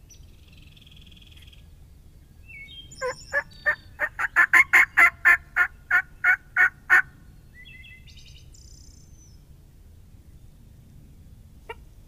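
A loud run of about fifteen quick turkey notes, from about three to seven seconds in, starting slower and speeding up into an even rapid series. Songbirds chirp briefly before and after it.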